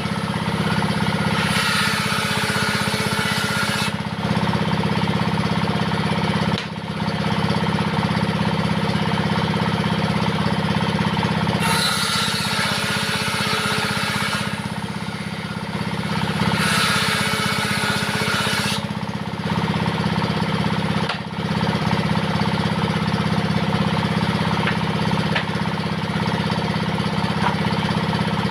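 Diesel engine running steadily to drive a home-built table saw, with the saw blade ripping through wood in three stretches of two to three seconds each, near the start and twice in the second half, where a harsher, higher cutting noise rises over the engine.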